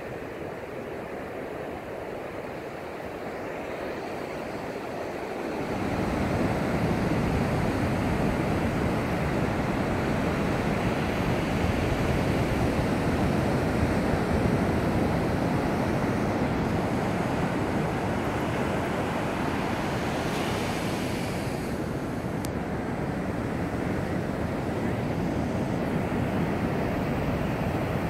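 Distant Atlas rocket launch rumble reaching the shore: a deep, steady rumble that sets in suddenly about six seconds in and holds, over a lighter hiss.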